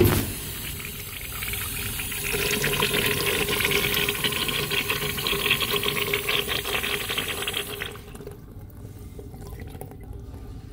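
Urinal flush valve firing: a sudden knock, then water rushing into the bowl and over the urinal screen for about eight seconds before the valve shuts off abruptly.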